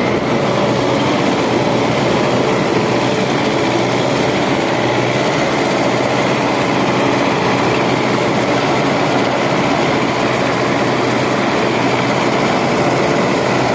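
DT-75 crawler tractor's turbocharged SMD diesel engine running steadily under load as the tractor drives along in fourth gear, picked up close on the machine, with a faint high whine over the engine.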